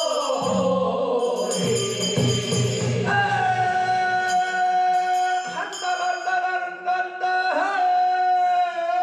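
A man singing a Korean funeral bier song (sangyeo sori) in long, drawn-out notes that waver in pitch. The voice slides down over the first seconds, then holds a long note, breaking briefly twice.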